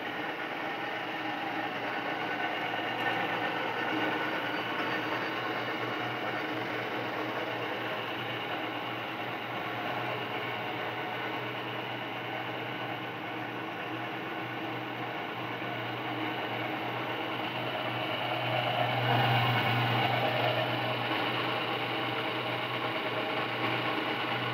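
Plastic strand pelletizer running steadily, its electric motor humming as the cutter chops extruded plastic strands into pellets. The machine noise swells a little about nineteen seconds in.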